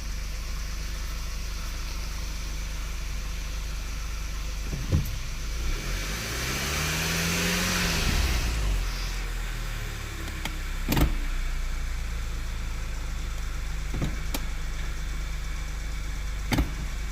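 2011 Audi A3's turbocharged 2.0-litre four-cylinder engine idling steadily. About six seconds in a hiss swells up with a tone that rises and falls, and a few sharp clicks stand out over the idle.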